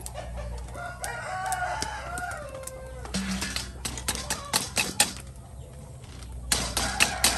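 A rooster crows once, a long call starting about a second in and falling away at the end about two seconds later. Sharp knocks of a knife cutting lemongrass on a wooden chopping board come through it and after it, loudest in the second half.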